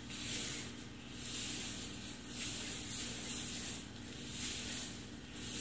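Plastic-gloved hands rubbing liquid straightening lotion through wet hair: a hissing swish that swells and fades about once a second with each stroke, over a faint steady low hum.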